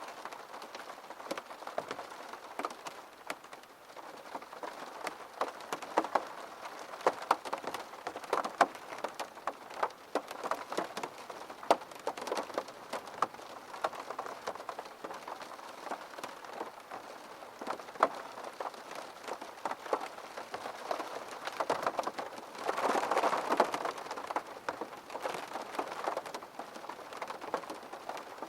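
Steady rain falling on a hard surface, with many distinct drops tapping sharply over the patter. About three-quarters of the way through there is a louder rush lasting a couple of seconds.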